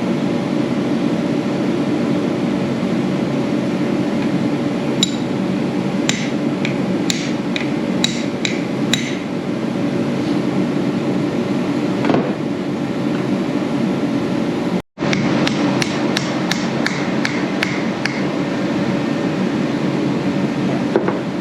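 Hammer strikes on metal, groups of sharp taps, knocking a sleeve out of a starter motor, over a steady low drone.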